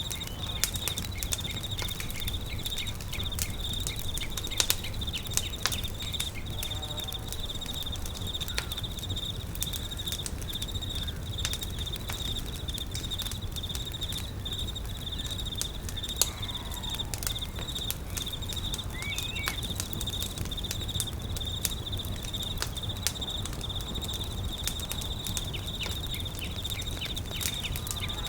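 Campfire crackling with scattered sharp pops over a low steady rumble, under a continuous high, pulsing insect trill like crickets. A few short bird chirps come through, one clear rising call about two-thirds of the way in.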